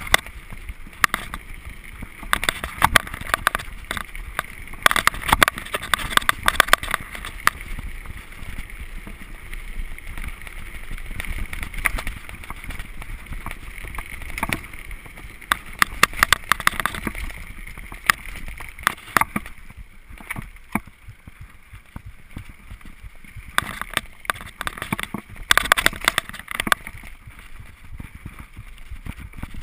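2009 Gary Fisher HiFi Pro Carbon mountain bike riding fast down wet, muddy singletrack: a steady rush of tyres rolling over dirt and leaves, broken by clusters of rattles and knocks as the bike goes over bumps.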